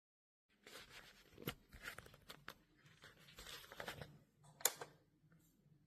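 Hard plastic toy parts being handled, with rustling and several sharp clicks, the loudest about four and a half seconds in, over a faint low hum.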